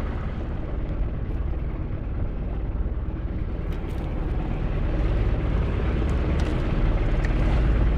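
Outrigger boat's engine running steadily, a low fast-pulsing drone that grows a little louder near the end.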